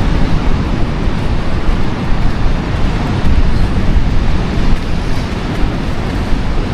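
Wind buffeting the microphone: a loud, steady low rumble that rises and falls.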